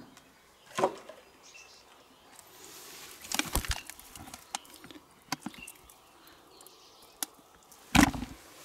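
Live catfish handled and dropped into a plastic basin: a few scattered wet slaps and knocks against the plastic, the loudest near the end, with a brief rustle about three seconds in.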